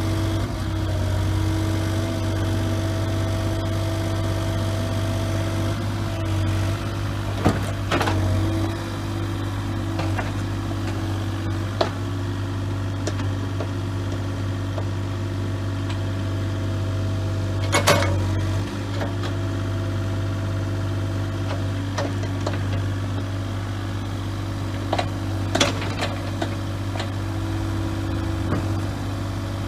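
Kubota KX040-4 mini excavator's diesel engine running steadily, its pitch shifting slightly a few times. A few sharp knocks are heard over it, the loudest past the middle.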